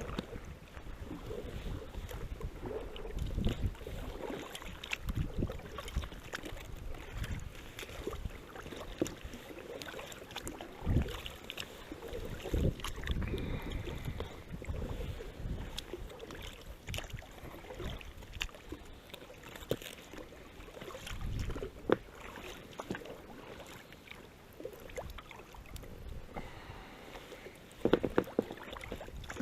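Water splashing and sloshing with irregular knocks and thuds as a gill net is worked by hand at the river.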